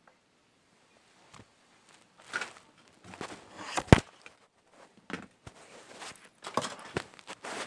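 Hands handling an object and its packaging: scattered rustling and light clicks, with one sharp click about four seconds in.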